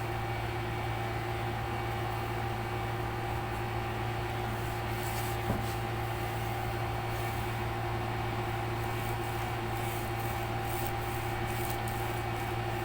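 Steady machine hum with a few fixed tones, and a single click about five and a half seconds in.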